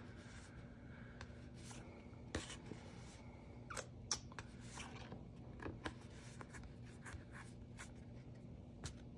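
Quiet rustling, scratching and light clicks of packaging being handled as items are taken out of an opened parcel, over a faint steady low hum.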